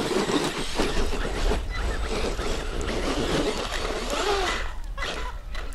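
Radio-controlled off-road buggy scrabbling up a steep loose-gravel slope, its tyres spinning and throwing grit and stones.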